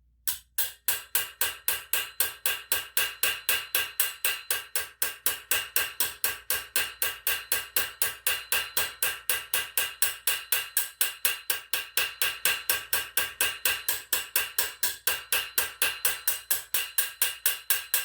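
Rapid, even hammer blows on a steel armour lame, about four a second, each ringing briefly: the metal around a stretched articulation hole being hammered back in to close the hole up.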